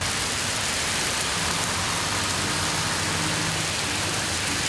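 Heavy rain pouring down steadily on pavement and grass. Under it, a vehicle's engine passing on the wet road is faintly heard in the middle.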